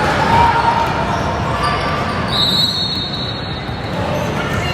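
Basketball being dribbled on a gym floor, with a steady hubbub of voices echoing in the gym. A high, steady tone lasting about a second sounds near the middle.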